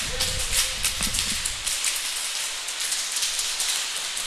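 A fast, irregular patter of sharp clicks and ticks from airsoft gunfire and BBs striking surfaces, with low thumps in the first second and a half.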